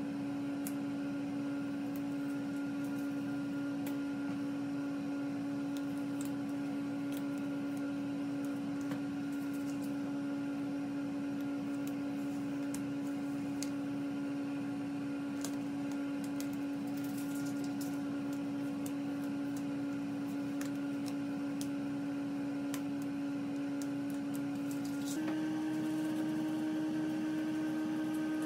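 Steady hum holding one pitch, stepping up slightly near the end. Faint scattered crinkles and clicks of painter's tape being pressed and handled on the tub wall sit over it.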